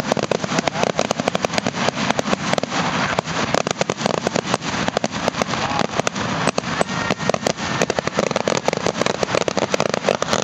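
Fireworks display: a rapid, continuous barrage of aerial shell bursts and crackling, the bangs coming many to the second and overlapping.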